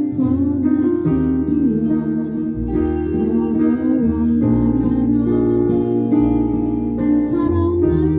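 A slow song playing, with sustained chords over a bass line that change every second or two, and no words.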